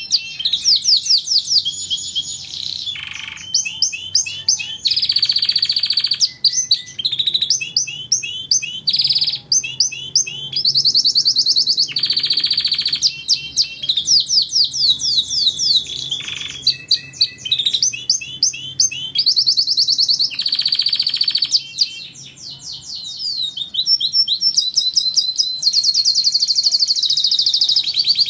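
Domestic canary singing a long, unbroken song of rapid trills and quick repeated chirping notes, switching to a new phrase every second or two.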